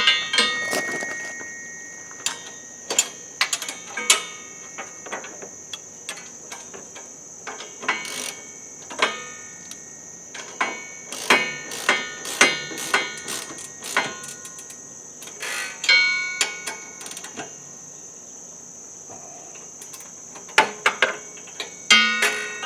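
Metal tools and hardware clinking and clattering: wrench, sockets and bolts knocked and set down while bolting the belt and pulley parts back onto a compact tractor. The clinks are irregular and ring briefly, with a steady high-pitched drone underneath.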